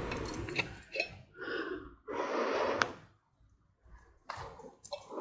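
A woman breathing hard: three long, noisy breaths with gasps and sighs, then a few small clicks near the end as she drinks from a steel flask.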